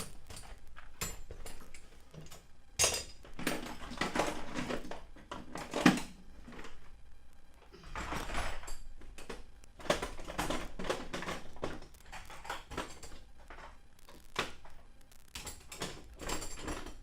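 Irregular knocking, clattering and scraping of hard objects being handled in a small enclosed space, with the sharpest knock about six seconds in.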